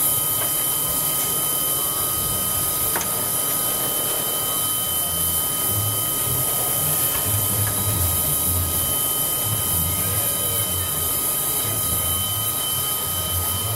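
A steam locomotive standing at idle, heard from right beside it: a steady hiss of steam with a steady high whine over it, and an uneven low chugging that comes and goes from about five seconds in.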